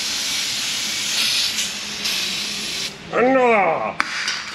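Aerosol cleaner spraying onto a brake rotor: a loud hiss that swells in several bursts, ending about three seconds in. A man's voice then gives a short sliding 'whoo' that rises and falls in pitch, followed by a sharp click.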